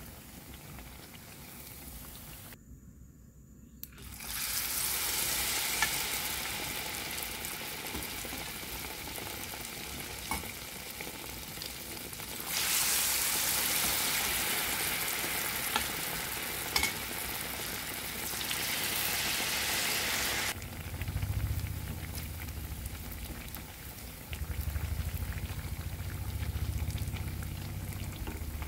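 Battered banana slices deep-frying in hot oil, a steady sizzle that cuts out briefly near the start and runs louder through the middle, with a few light clicks as chopsticks turn the slices. A low hum comes in about two-thirds of the way through.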